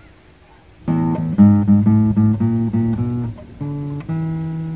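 Acoustic guitar strummed. After about a second it plays a quick run of chords, then two chords near the end that are left to ring.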